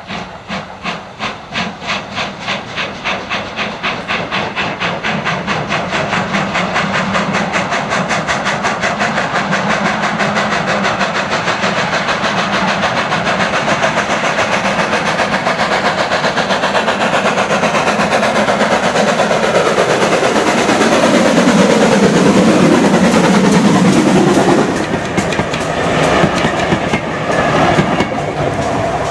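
Two 2-6-0 mogul steam locomotives double-heading, ex-SR U-class 31806 leading ex-GWR 4300-class 5322, working hard as they approach: rhythmic exhaust beats that quicken and grow louder. Then the locomotives and train pass close by with wheels clattering on the rails.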